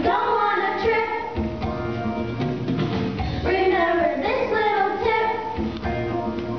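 A group of children singing a song together over musical accompaniment.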